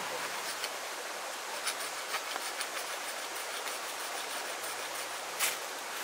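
Steady rushing of a river, with a few light clicks over it and a sharper click about five seconds in.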